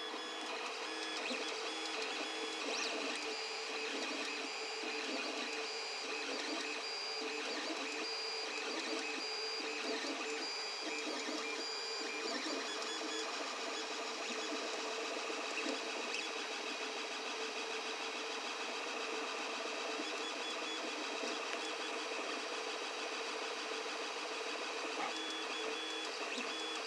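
FDM 3D printer running a print: its stepper motors whine in steady tones that switch on and off as the print head moves, with a low pulse repeating about once a second through the first half.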